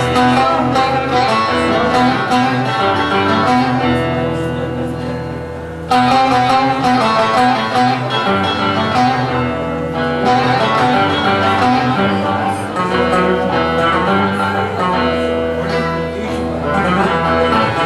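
Bağlamas, Turkish long-necked lutes, playing an instrumental folk tune. The playing fades off toward the six-second mark, then comes back in suddenly at full strength.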